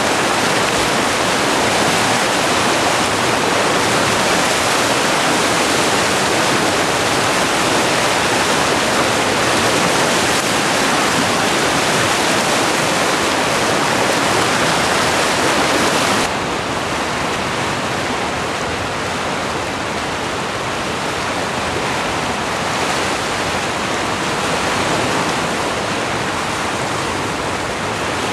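Whitewater rapids rushing: a loud, steady roar of churning water. About sixteen seconds in it drops suddenly to a somewhat quieter, duller roar.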